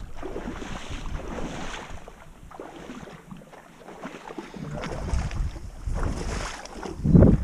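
Wind buffeting the microphone in gusts, easing off around the middle and picking up again, with a strong gust near the end.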